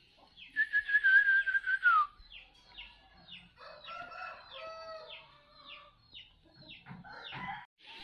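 A rooster crows once, a drawn-out wavering call that drops in pitch at its end, followed by a run of short falling chirps about twice a second.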